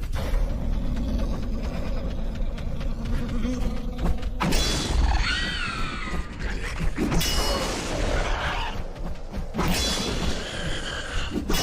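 Monster creature sound effects: a low rumbling growl, then shrill screeching cries that waver up and down in pitch, breaking in suddenly about four and a half seconds in and again near ten seconds.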